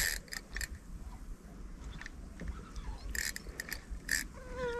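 Spinning reel's drag giving line in a few short buzzing spurts as a hooked bowfin pulls, two clusters of them. Near the end an insect buzzes close by with a wavering whine.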